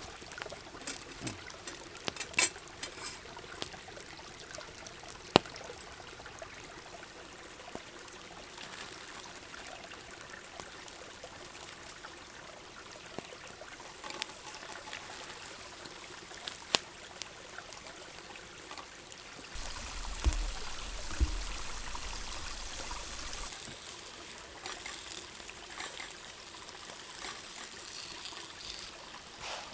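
River water running steadily, with a few sharp clicks and knocks. About twenty seconds in there is a louder stretch with a couple of low bumps.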